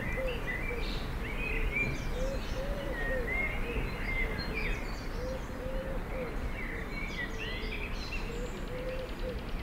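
Outdoor birdsong: many short high chirps and whistles from several birds, over a steady run of short, low, rising-and-falling calls and a constant low rumble.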